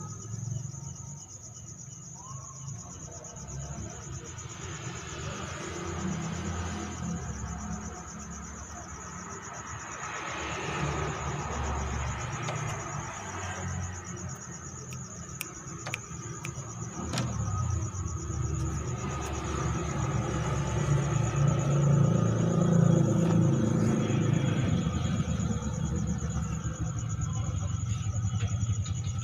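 A steady, high-pitched insect trill over a low rumble that grows louder about two-thirds of the way through.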